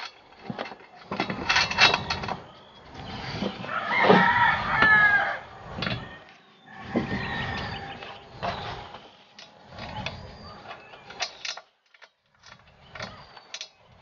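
A rooster crowing about four seconds in, the loudest sound, among scattered clicks and knocks of plastic wheels being fitted onto an air compressor's tank.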